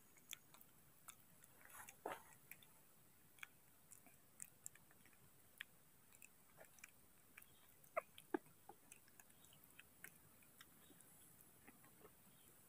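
Faint, scattered wet clicks and smacks of baby monkeys chewing banana, with a few sharper clicks about two seconds in and a pair about eight seconds in.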